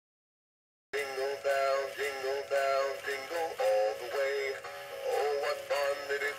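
Silence for about the first second, then a talking Christmas tree toy starts abruptly into a recorded, electronic-sounding Christmas song, sung with music.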